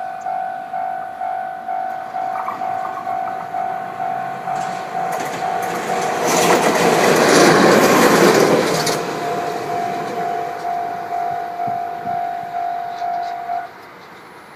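Level crossing warning bell ringing about three times a second while a JNR DE10 diesel-hydraulic locomotive passes over the crossing. The locomotive's engine and wheels swell up and are loudest about halfway through, and the bell stops shortly before the end.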